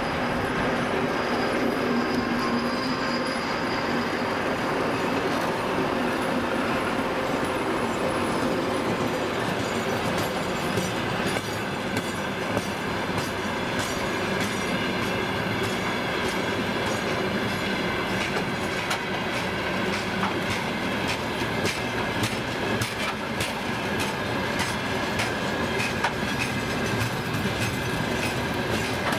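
Freight train wagons rolling past at speed, the wheels clacking over rail joints with some wheel squeal. A low drone fades away over the first several seconds, and the clacks come thicker in the second half.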